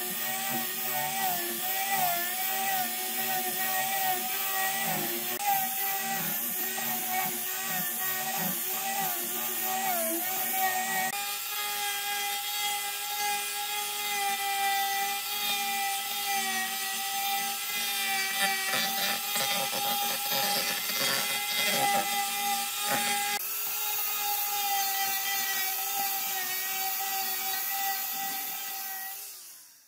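Electric angle grinder fitted with a sanding disc, sanding a wooden tabletop. The motor gives a steady whine whose pitch wobbles as the disc is pressed and moved over the wood, with the rasp of the abrasive on the wood beneath it. The sound fades out at the end.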